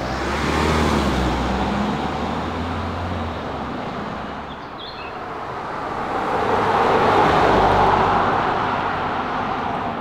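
Land Rover Defender SUV driving past on a paved road: engine hum and tyre noise rise and fall twice, once about a second in and again, louder, near the end.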